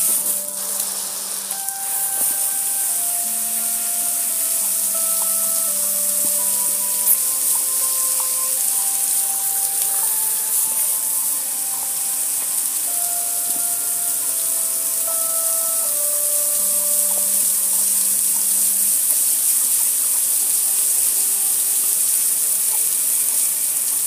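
Steady hiss of a water spray splashing over a metal gas grill, with a slow melody of held notes playing underneath.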